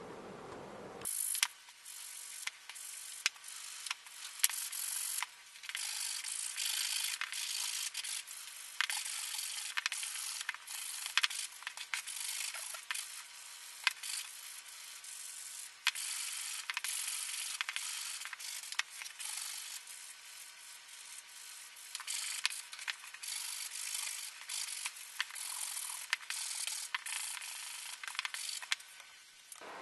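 Small wooden toy-truck parts being hand-sanded: irregular rubbing strokes of abrasive on wood, broken by a number of sharp knocks and clicks.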